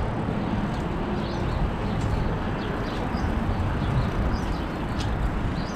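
City street ambience: a steady low rumble of traffic, with a few faint, short high chirps scattered through it.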